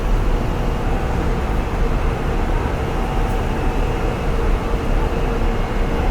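Steady low rumble of a moving vehicle, with a faint steady hum running through it.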